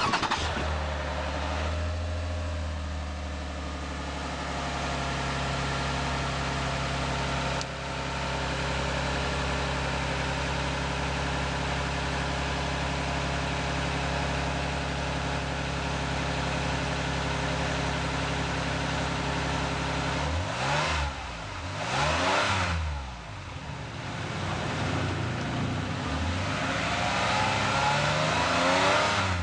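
The 3.5-litre V6 of a 2015 Lexus RX 350, heard at the tailpipe, fires up and settles into a steady idle. About two-thirds through it gets two quick revs. Near the end comes a longer rev that climbs and then drops back.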